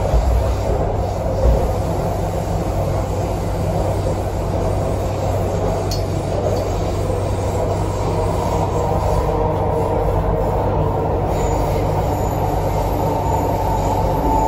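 Inside the carriage of an MTR C-train running on the line: a steady rumble of wheels on rail and running gear, with two short thumps in the first second and a half.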